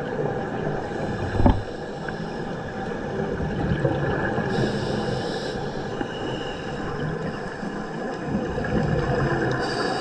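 Underwater sound picked up by a GoPro HERO9 in its housing: a steady low rumble and hiss, with a thump about a second and a half in and brief swells of high hiss about five seconds apart.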